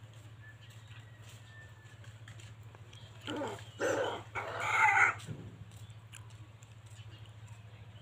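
Rooster crowing once, a call of about two seconds in three parts, the last part the longest and dropping in pitch at the end.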